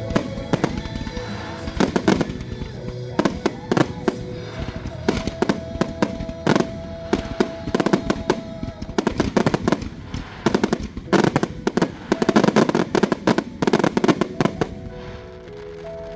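Fireworks finale: a rapid barrage of bangs and crackles, thickest in the last third and stopping shortly before the end, over music that keeps playing.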